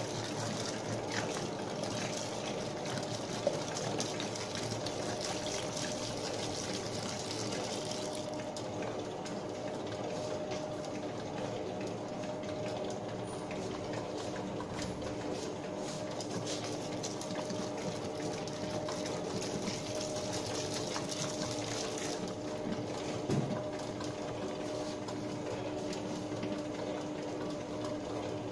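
Commercial spiral dough mixer running steadily, its motor and drive giving a constant hum with a steady whine, as the spiral hook churns dry flour in the steel bowl at the start of mixing. There is one light knock about 23 seconds in.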